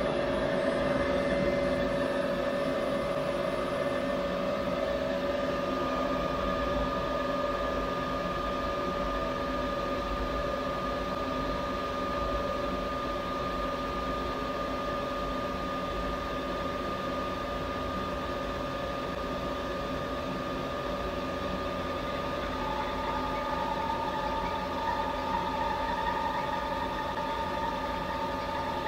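CNC vertical mill's spindle running steadily at about 1,000 rpm while the end mill cuts a machinist-wax block. It makes a steady whine, with a higher tone joining about five seconds in and another near the end.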